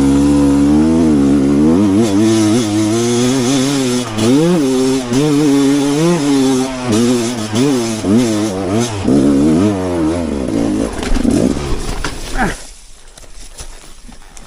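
Rieju enduro motorcycle engine revving up and down over and over under sharp throttle blips, then its sound drops away abruptly about twelve seconds in.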